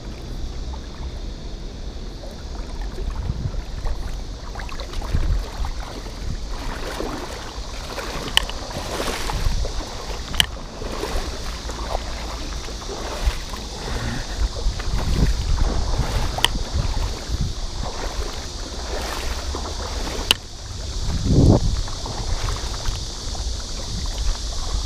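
Wind rumbling on the microphone over shallow river water rushing and sloshing, with a few single sharp clicks.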